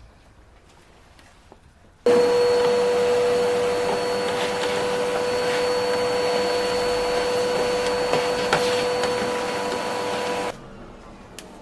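An electric motor runs at a steady speed with a constant whine. It switches on abruptly about two seconds in and cuts off just as suddenly about eight seconds later.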